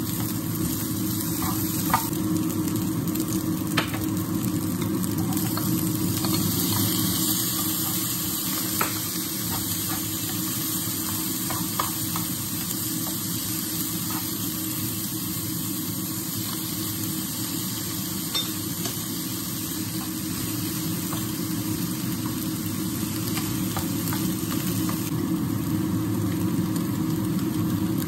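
Food sizzling as it fries in a pan, with a steady low hum underneath and a few light clicks of a utensil against the pan.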